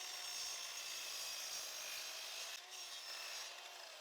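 Electric miter saw running and cutting through the wooden door jamb; near the end its pitch starts to fall as the blade spins down.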